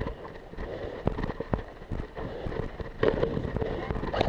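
Footsteps moving through woodland undergrowth, crunching leaves and snapping twigs, with rustling against the body-worn camera. The steps grow quicker and louder about three seconds in.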